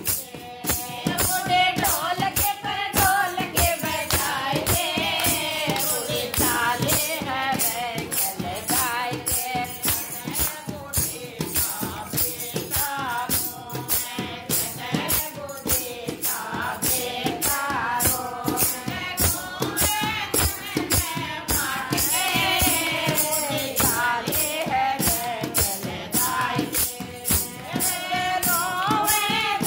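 A woman singing a Shekhawati bhajan, a Rajasthani folk devotional song, in a strong unaccompanied-sounding voice over a steady beat of sharp, bright percussion strikes.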